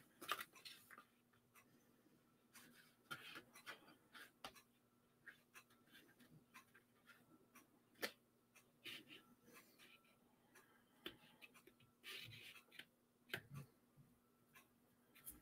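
Near silence with faint, scattered taps and rustles of cardstock being handled and pressed together while glued tabs set.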